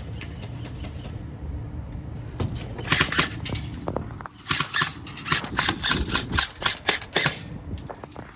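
Airsoft guns being test-fired: a short cluster of sharp snapping shots about three seconds in, then a rapid run of a dozen or so shots from about four and a half seconds to seven seconds.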